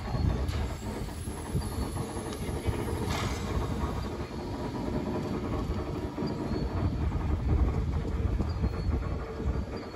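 Steam locomotive Morehead & North Fork No. 12, an 0-6-0, riding a turning turntable: a steady low rumble of the turntable and idling engine, with light steam hiss and a brief louder hiss about three seconds in.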